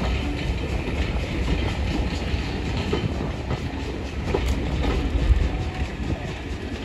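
Railway passenger coaches rolling past along a platform: a steady rumble of wheels on rails with a few faint clicks.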